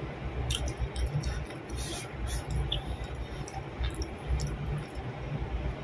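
A person chewing food close to the microphone, with wet mouth sounds and scattered small irregular clicks and squishes from eating rice and fried eggplant by hand.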